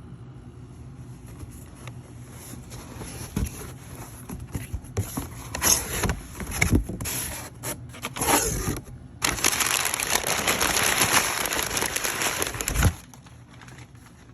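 Cardboard box and packing material being handled and opened: irregular crinkling and scraping, then a steady rustling scrape for about four seconds from about nine seconds in that stops suddenly.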